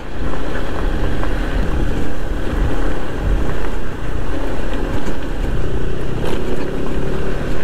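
Honda ADV 150 scooter's single-cylinder engine running steadily while riding a loose gravel and sand track, under a heavy rumble of road and wind noise.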